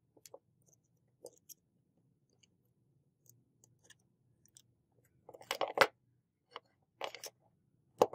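Screwdriver prying and scraping at a rusty metal toy car body: scattered small clicks, then a gritty crunching scrape about five seconds in, the loudest part, a shorter scrape around seven seconds and a knock of metal on the table near the end.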